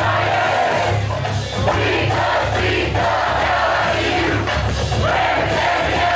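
A crowd of football fans in a packed bar singing together over music, loud and steady, with shouts among them.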